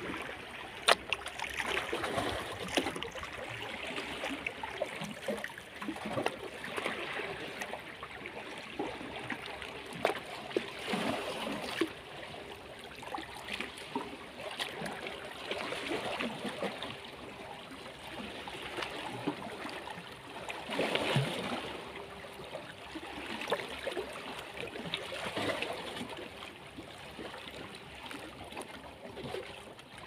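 Small sea waves lapping and splashing against shoreline rocks, with water trickling and gurgling between the stones. The wash swells every four to five seconds.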